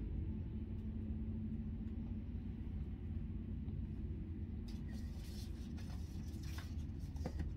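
Steady low room hum, with the paper pages of a hardcover picture book being handled and turned in a few short rustles from about five seconds in.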